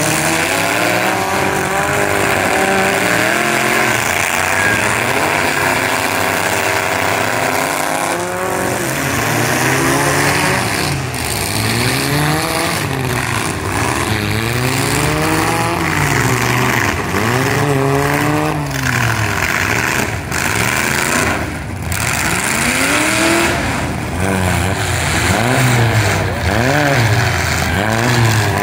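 Demolition derby cars' engines revving up and down over and over as the wrecked cars push and manoeuvre in the mud.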